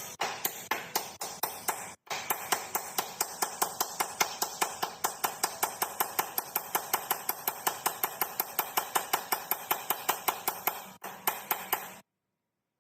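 Rapid, evenly spaced metallic strikes, about five a second, with a brief break about two seconds in, then stopping abruptly about a second before the end.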